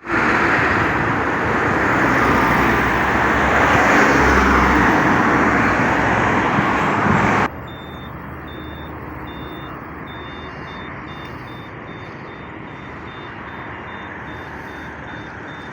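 Loud street traffic noise that cuts off suddenly about halfway through, followed by quieter street ambience with a high electronic beep repeating about twice a second.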